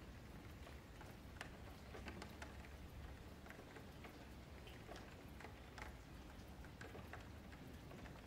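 Faint, irregular clicking of a computer mouse and keyboard, a few clicks a second, over a low steady hum.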